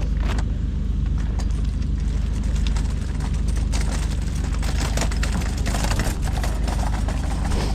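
Steady low engine hum, with scattered light clicks and knocks over it.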